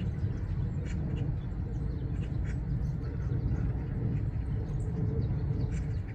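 Scattered short, high chirps of Eurasian tree sparrows over a steady low rumble.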